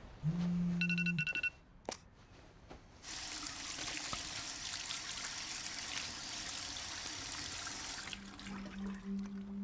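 A short, loud electronic tone lasting about a second at the start. Then a bathroom tap runs water over hands into a sink for about five seconds. A low steady hum comes in near the end.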